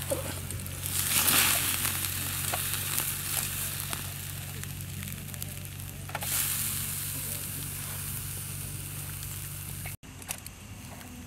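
Steak sizzling on the wire grate of a small charcoal grill, a steady hiss that swells louder about a second in and again about six seconds in.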